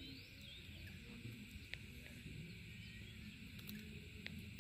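Faint open-air ambience: a low rumble of wind on the microphone, with faint high chirps and two short clicks, one about a third of the way in and one near the end.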